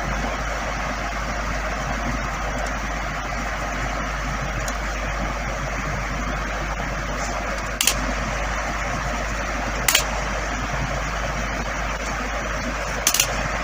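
Steady, even rushing hiss of background noise with a low hum underneath, broken by a few short clicks in the second half.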